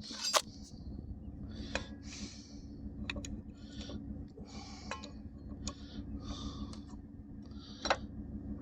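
Old Dodge pickup engine idling steadily, with sharp clicks and taps of hand tools on metal and short hissing sounds about once a second.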